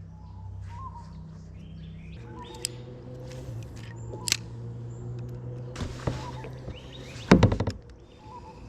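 Small birds chirping, short rising calls every second or two, over a steady low hum. Scattered single clicks, and near the end a loud quick cluster of knocks.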